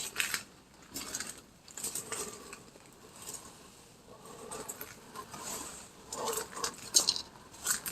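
Slow footsteps crunching over dry debris, about one step a second, with small crackles and scrapes between them.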